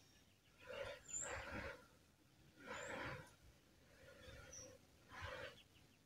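About five short, breathy, husky calls from an animal, spaced unevenly, with faint high chirps of distant birds.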